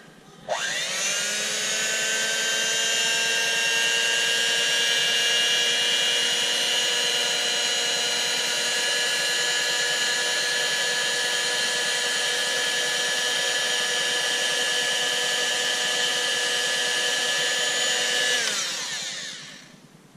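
Electric hand mixer's motor switched on about half a second in. It spins up with a rising whine, runs steadily at speed, then winds down with a falling pitch near the end.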